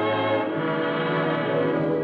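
Orchestral music with brass holding sustained chords, the harmony shifting about half a second in.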